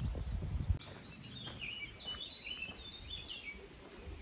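Songbirds singing in woodland: many short, quick chirps and warbling phrases, high-pitched and overlapping. A low rumble underneath stops abruptly less than a second in.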